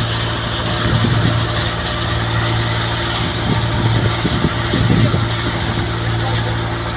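A tractor-driven mini tokri thresher running at steady speed, with a steady low engine hum and the threshing drum working through the dry crop being fed into it.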